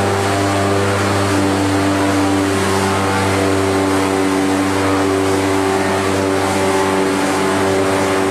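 Corrugated cardboard production line machinery running: a steady mechanical hum with a constant low drone and several held tones above it.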